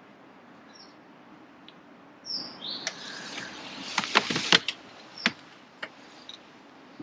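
A bird chirps a few times, then comes a quick run of sharp clicks and taps from the angler's rod and reel as he lifts the feeder rod and takes hold of the reel, with a couple of single clicks after.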